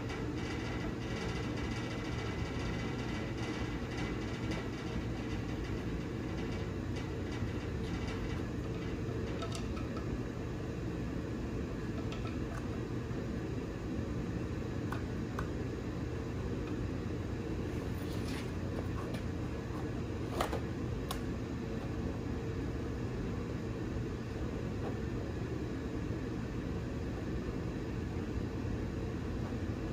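Steady low rumble of a shop heater running, with a few faint metallic clinks as a camshaft is eased by hand through the cam bearings of a 350 small-block; the sharpest clink comes about two-thirds of the way through.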